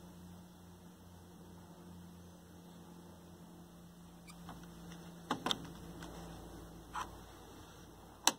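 Small plastic clicks of the Sony Trinitron KV-1942R's front-panel slide switches being set by hand: two close together about five seconds in, another at about seven seconds and a sharper one near the end. A faint low hum runs underneath and fades out about halfway through.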